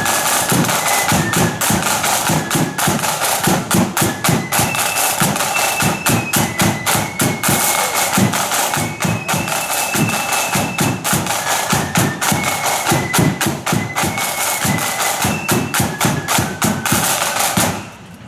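Marching flute band playing: flutes carry a stepping melody over a dense, regular beat of bass and side drums. The music stops just before the end.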